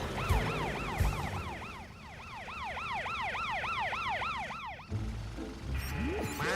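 Cartoon ambulance siren wailing in quick, repeated up-and-down sweeps, about three a second. It cuts off about three-quarters of the way through, and low background music carries on after it.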